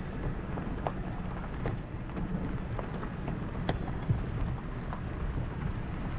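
Car driving on a dirt and gravel road: a steady low rumble of tyres and road noise, with scattered sharp clicks of gravel.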